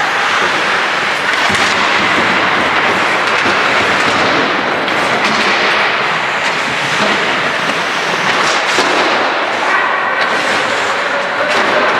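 Ice hockey play on the rink: a steady scraping hiss of skates on ice, broken by scattered sharp clacks of sticks and puck.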